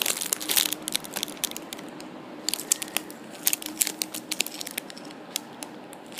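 Clear plastic packaging crinkling as donut squishy toys sealed in it are handled and turned over, in irregular crackles.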